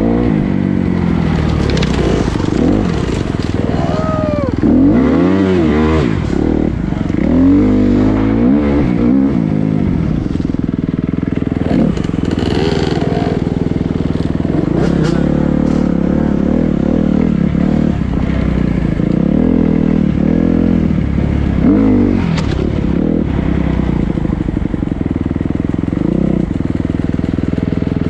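Dirt bike engines under way, revving up and easing off again and again with the throttle, with a few sharp knocks from the rough trail.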